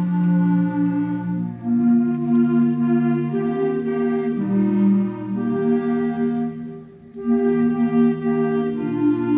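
School wind band playing a slow hymn in held chords, with clarinets and flutes to the fore. The chords change every second or so, and the sound thins briefly about seven seconds in before the next phrase.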